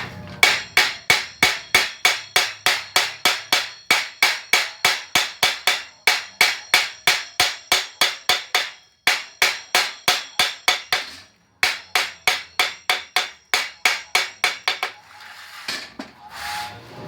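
Quick, even metal strokes on a steel bandsaw blade at its welded joint, about three a second, each with a short metallic ring. The run breaks off briefly three times and stops a couple of seconds before the end.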